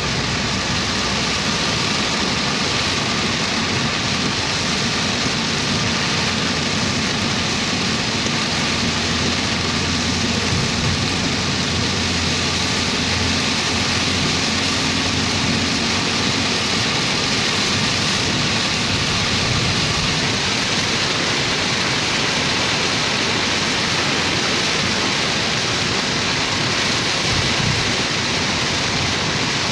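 Very heavy rain pouring down in a steady, loud hiss. A low rumble rises under it for several seconds near the middle.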